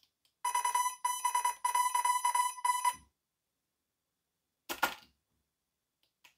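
A string of electronic beeps at one steady pitch, broken into several short segments, from the RC helicopter's electronics as they power up on battery connection. A brief knock follows a couple of seconds later.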